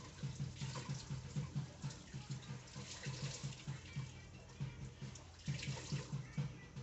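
Water bubbling and gurgling over a steady low hum, with soft low pulses about five a second that pause briefly about two-thirds of the way through.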